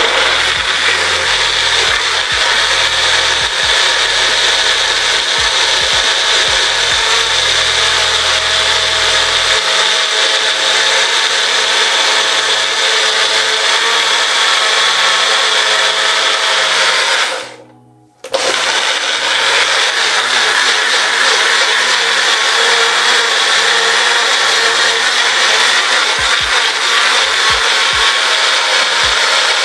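Electric blender running steadily as it purées fruit and vegetables into a green smoothie. It cuts out for about a second roughly seventeen seconds in, then starts up again at the same level.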